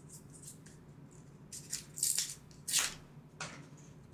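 A new deck of game cards being handled as its paper band is worked off: a few short rustles and scrapes of card and paper, the loudest about two and three seconds in.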